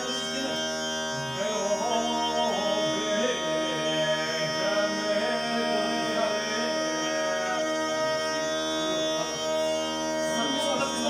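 Bulgarian gaida (bagpipe) playing an ornamented folk tune over its steady drone.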